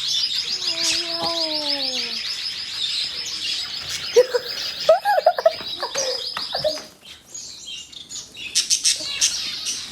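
A group of caged birds chirping in a rapid, steady chatter that stops about seven seconds in. A few lower, falling calls come in over it, and sharp high chirps follow near the end.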